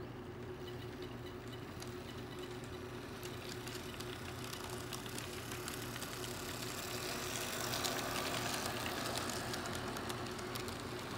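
Model freight train running past, led by an Erie Lackawanna SD45 locomotive: a steady hum with many small clicks of wheels on track. It grows louder as the locomotive and cars pass close, most of all about eight seconds in.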